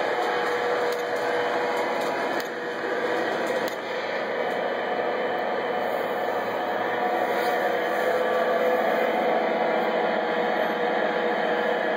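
Lionel O scale model diesel locomotive pulling a freight train along three-rail track: a steady hum of the motor and rolling wheels.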